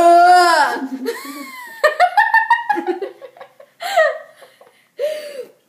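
Young girls laughing hard in several bursts of giggling, the loudest at the start.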